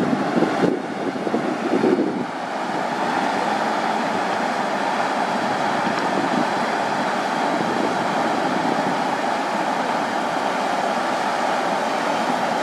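Steam fumarole venting, a steady loud rushing hiss of steam escaping from a rock-capped vent. In the first two seconds wind gusts on the microphone.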